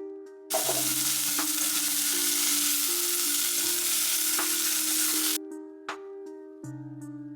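Food sizzling loudly in hot oil in a frying pan, starting suddenly about half a second in and cutting off abruptly around five seconds, over background music with plucked notes.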